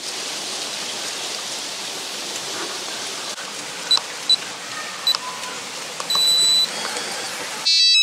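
RVLock electronic door lock keypad beeping as its buttons are pressed through the new membrane: three short high beeps at about four to five seconds, a longer beep a little after six seconds, then a louder beeping burst near the end. A steady hiss underlies it all.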